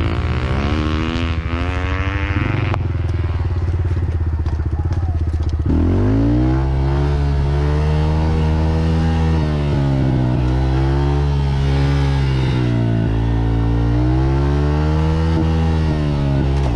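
Dirt bike engine running under throttle on a trail, its pitch rising sharply about six seconds in, then revving up and easing off several times.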